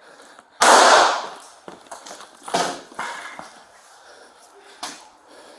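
A loud, sudden bang about half a second in that echoes away over about half a second, followed by a couple of much fainter knocks.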